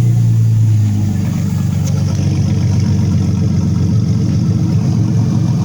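Mercedes-Benz W210 E320's V6 engine idling steadily, just started on a new custom fuel cell and fuel system.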